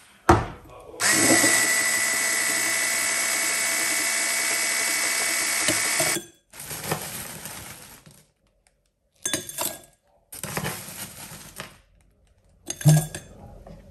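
Small electric kitchen appliance motor, blender-like, switched on with a click and running at a steady pitch for about five seconds before cutting off. Several short bouts of clattering follow.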